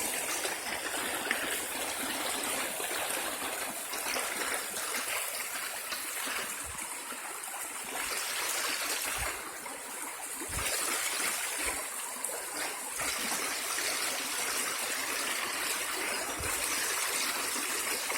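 Running water of a small stream trickling and gurgling steadily, with a few soft low bumps.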